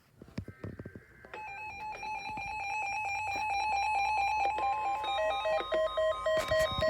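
Electronic emergency alert tones. A few clicks come first, then about a second in a rapid string of stepping electronic beeps starts and grows louder. About halfway through, a steady high tone near 1 kHz joins the beeps.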